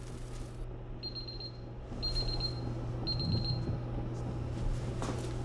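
Electronic beeping from a Combustion predictive thermometer's display: three bursts of quick, high-pitched alarm beeps about a second apart, over a low steady hum.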